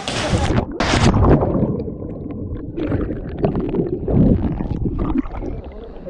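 A person jumping feet-first into a pool of water: a splash in the first second, followed by muffled churning and gurgling water.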